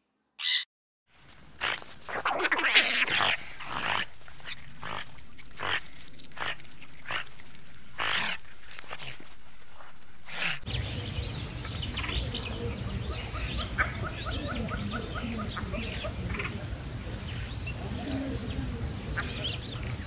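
Blue-and-yellow macaws giving a series of harsh squawks. About ten seconds in, the sound cuts to an otter's high chirps and squeaks, with one quick chattering run, over a steady low rumble.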